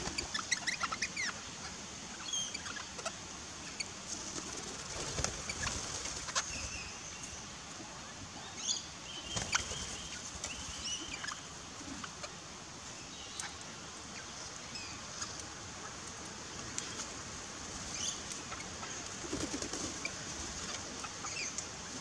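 Parrots at a backyard feeder, crimson rosellas among them: short scattered chirps and whistles and a few wing flutters, over a steady high hiss.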